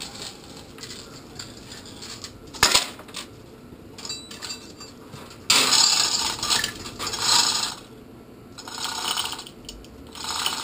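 Steel chain of a manual chain hoist rattling in spells as the hand chain is pulled to move a hanging boat engine, with one sharp metal knock a few seconds before.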